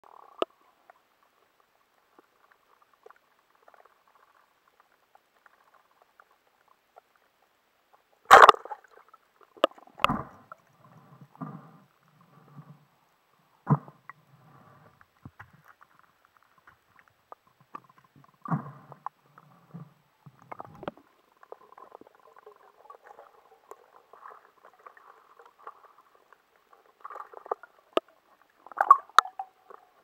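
Muffled knocks, clicks and rubbing noises heard underwater through a camera's waterproof housing. The sharpest knock comes about eight seconds in, and the noises grow busier near the end.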